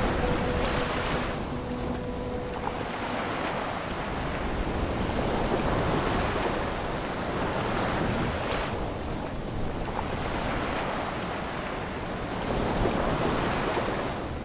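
Wind buffeting the microphone over the wash of water around a sailboat at anchor, a steady rushing noise that swells and eases.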